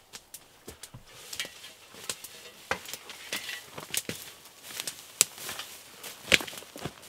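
Footsteps of people sneaking through brush: irregular crackling and snapping, with a couple of louder snaps near the end.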